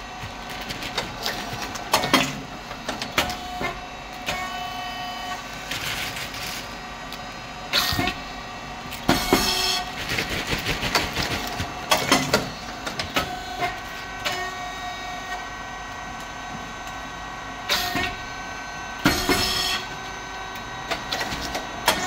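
Rice cake popping machine (SYP5310T, triangle chip moulds) running its production cycles: loud, sudden bursts as the heated moulds release and the chips puff, in a pattern that repeats about every ten seconds, over a steady mechanical hum with several steady whining tones.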